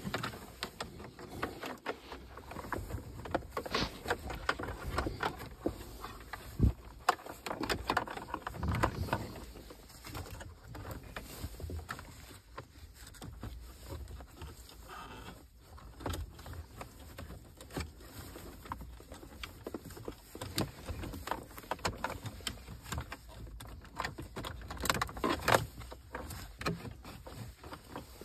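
Hands working in a car dashboard during a radio install: plastic trim, a switch panel and wiring connectors clicking, knocking and rattling, with cables and clothing rustling. The sharpest knocks come about a quarter of the way in and near the end.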